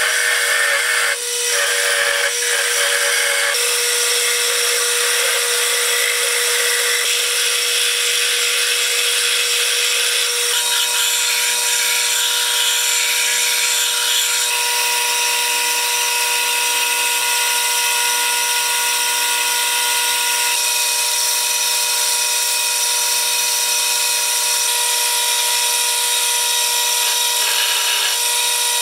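Wood lathe running with a steady whine as a turning chisel cuts shavings from a spinning wooden handle, then a flat file rubs along the turning wood; near the end a handsaw cuts into it. The sound changes abruptly several times.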